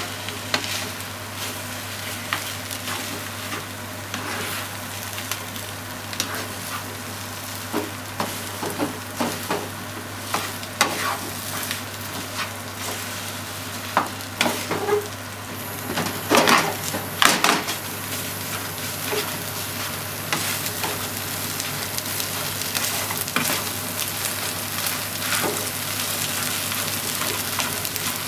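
Fried rice sizzling in a nonstick frying pan while a spatula stirs and scrapes it, with frequent short scrapes against the pan; the scraping comes in a louder flurry about sixteen seconds in.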